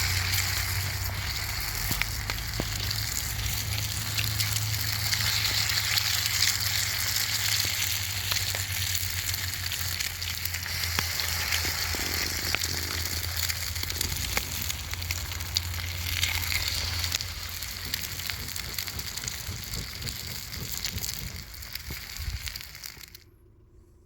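Wood fire crackling and hissing: a steady sizzling hiss full of sharp pops and snaps, with a low hum under it for most of the time. It stops abruptly near the end.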